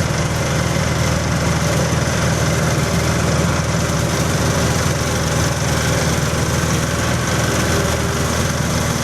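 Peanut shelling machine running steadily with a constant mechanical drone.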